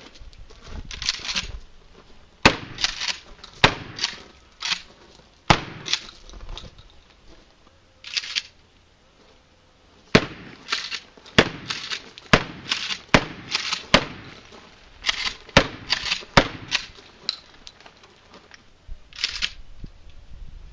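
A series of about a dozen loud gunshots, each with a short ring-out. They come in two groups: several shots in the first half, a pause of about two seconds, then a faster run of shots about a second apart.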